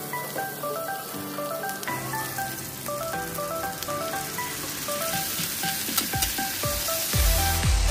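Onions and garlic sizzling in a hot frying pan as sauce is poured in, over background music whose heavy beat comes in near the end.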